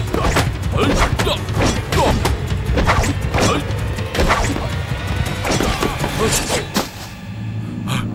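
Fight-scene sound effects: a rapid run of punches and blows over dramatic background music, easing off about seven seconds in.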